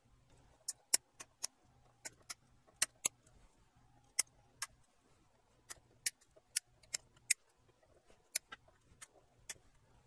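Flush cutters snipping excess component leads on the solder side of a circuit board: about twenty sharp clicks at irregular spacing, one cut at a time.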